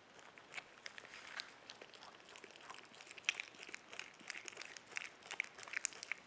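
Capybara gnawing and chewing a yam: a quick, irregular run of small crunches and clicks, several a second.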